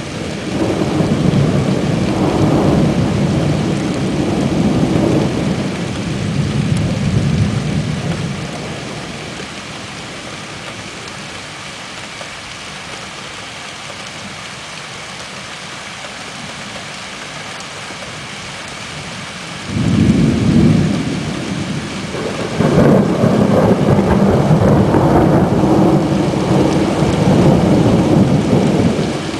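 Thunder over steady rain. A long roll of thunder dies down after about eight seconds, then a sudden loud clap breaks in about twenty seconds in and is followed by another long roll.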